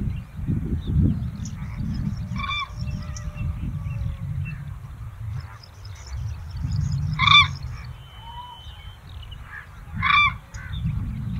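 A large bird gives three short, loud, pitched calls, about two and a half, seven and ten seconds in. A low rumble runs underneath, with faint high chirping.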